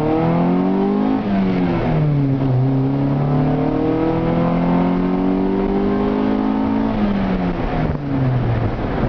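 1993 Honda Civic Si's D16Z6 1.6-litre SOHC VTEC four-cylinder, heard from inside the cabin, pulling under acceleration. Revs climb, fall away about a second in with a gear change, then climb again more slowly until about seven seconds in before dropping off.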